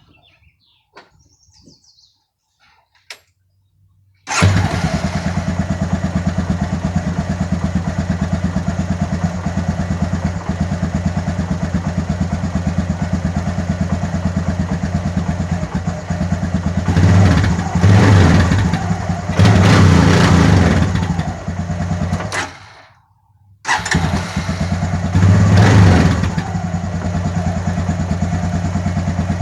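Honda Recon 250 ATV engine being test-started. After a few faint clicks it catches about four seconds in and runs steadily, is revved twice, stalls briefly, restarts about a second later, is revved again and settles back to idle.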